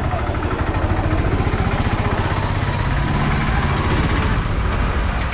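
Tuk-tuk (auto-rickshaw) engine running close by, a steady low note with a fast pulsing beat that fades about three and a half seconds in.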